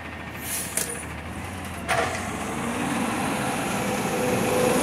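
Peterbilt 320 garbage truck with a McNeilus Meridian front-loader body and a natural-gas engine, running and pulling forward. There is a sudden sharp noise about two seconds in, then the engine grows louder with a faint rising whine.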